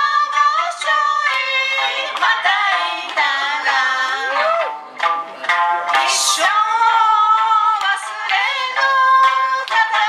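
Live music: female singing over plucked stringed instruments, with a short high hissing accent about six seconds in.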